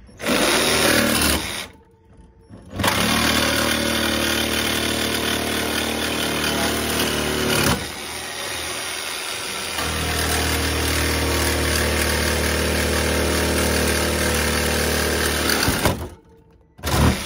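Metabo HPT cordless jigsaw, on a 36-volt battery, cutting through steel wire shelving. A short burst comes first, then a pause of about a second, then a long run of about thirteen seconds, dipping briefly near the middle and settling to a deeper, steadier note for the rest of the cut before it stops shortly before the end.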